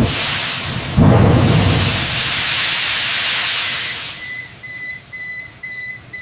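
Fire-suppression gas discharging into an aircraft cargo hold with a loud hiss, surging again about a second in and dying away after about four seconds. As it fades, a high electronic alarm beep repeats about twice a second.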